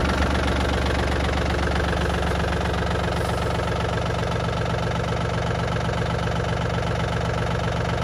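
Yanmar F-180 compact tractor's diesel engine idling steadily.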